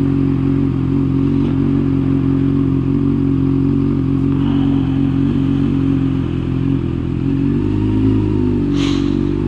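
Motorcycle engine idling steadily while stopped in traffic. Its note changes slightly about eight seconds in as the bike moves off.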